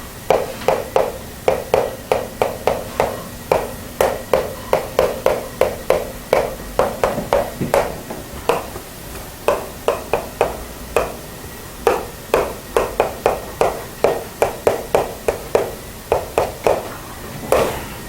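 Writing on a board: a quick run of short tapping strokes, about three to four a second, pausing briefly now and then.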